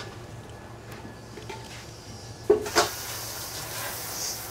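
Busy kitchen work over a low steady hum of kitchen equipment: metal kitchenware clanks a couple of times about two and a half seconds in, followed by a steady hiss.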